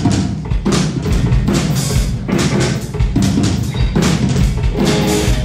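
Southern rock band playing live: distorted electric guitars and bass over a drum kit keeping a steady kick-and-snare beat.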